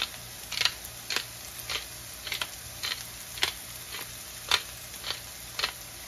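Pepper mill grinding black pepper, a short crunching click about twice a second at an even pace.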